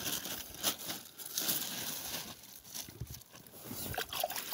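Thin black plastic bag being handled, crinkling and rustling in irregular bursts of sharp crackles.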